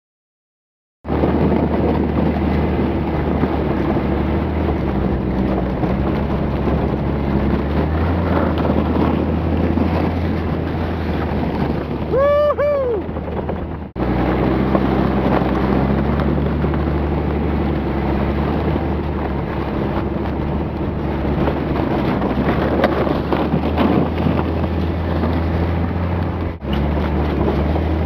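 Jeep Cherokee XJ driving on snow, its engine a steady drone under heavy wind buffeting on the microphone. A short yell rises and falls about halfway through, and the sound breaks off abruptly twice.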